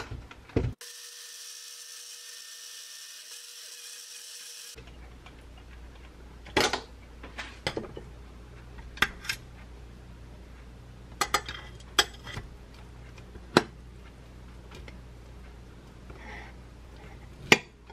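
Personal bottle blender running steadily for about four seconds as it blends kale and fruit with a little water into juice, then stops abruptly. After that come about a dozen sharp clicks and knocks of a metal knife and serving spatula against ceramic plates, the loudest one near the end.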